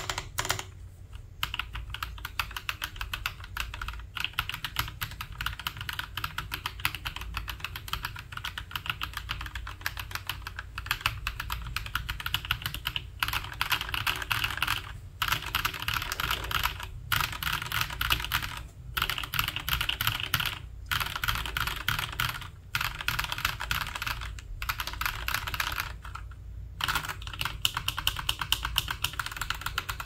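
Fast, continuous typing on a Keychron V10 mechanical keyboard with a steel plate, fitted with Homoo Sea Salt Lemon switches: a dense run of key clicks with a few brief pauses. After a short break near the end, typing resumes on G-Square White Samurai switches.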